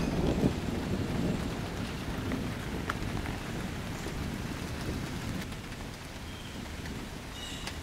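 Steady rain falling with scattered drips, under a low thunder rumble that dies away over the first second or two.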